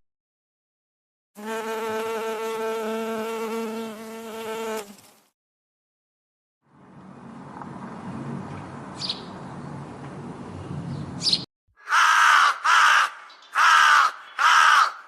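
An insect buzzing steadily for about three and a half seconds. After a gap comes a rough noisy stretch with two brief high squeaks, then four loud short animal calls near the end.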